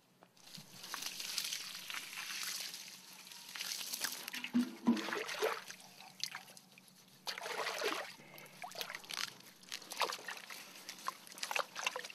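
Bunch of carrots being swished and rinsed by hand in a tank of water: repeated spells of sloshing and splashing.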